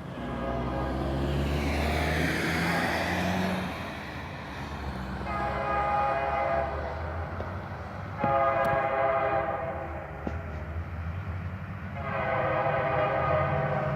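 Approaching diesel freight train sounding its horn in three long blasts over a steady low locomotive rumble, with a rushing noise in the first few seconds.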